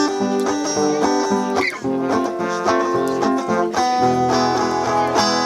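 Acoustic guitar strumming and picking chords: the instrumental ending of a song after the last sung line.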